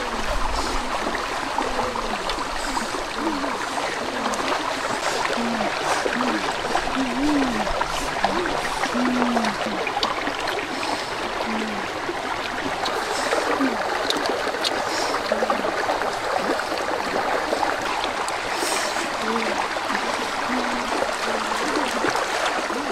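Shallow stream running over rocks: a steady rush of water with short low burbling notes scattered through it.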